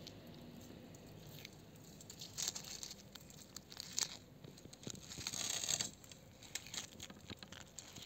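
A tortoise biting and chewing a ripe strawberry: small wet bites and tearing clicks in irregular bursts, with a longer scratchy stretch about five seconds in.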